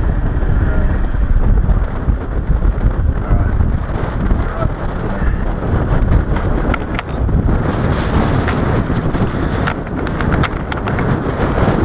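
Heavy wind buffeting the microphone on a small boat under way, a loud low rumble, with a few light clicks and knocks near the end.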